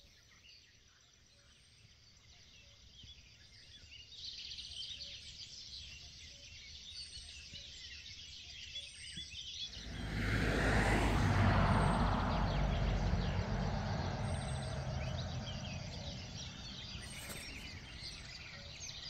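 Small birds chirping and singing, joined about ten seconds in by a road vehicle passing by, its rumble and tyre noise swelling quickly and then fading slowly away.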